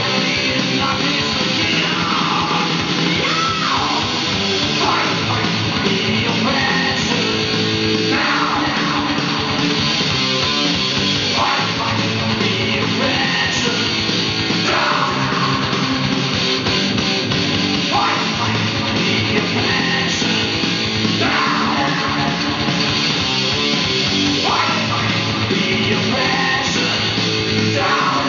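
Heavy rock music with electric guitar and shouted singing, playing back from a vinyl LP on a Technics SL-20A turntable.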